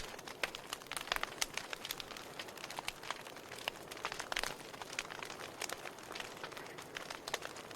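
Wood fire burning in a fireplace, crackling and popping in irregular sharp snaps over a soft steady hiss.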